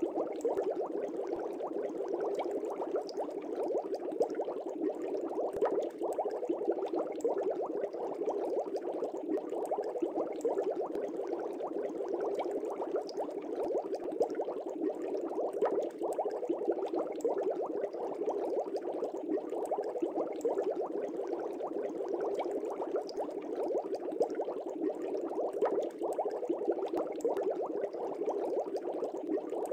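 Steady, continuous bubbling water, a dense unbroken stream of small bubbles at an even level.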